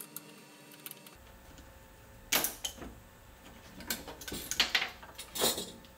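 Handling noises of workholding being undone on a CNC router bed: a small hand tool working at the metal clamps, then the board being lifted off. Several sharp clacks and knocks start about two seconds in.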